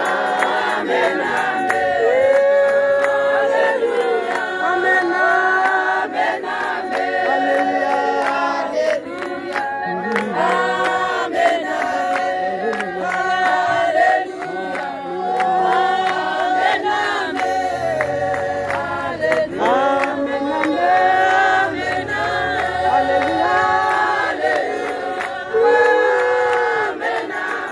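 A church congregation of men and women singing a hymn together in unison without instruments, with hand clapping beneath the voices.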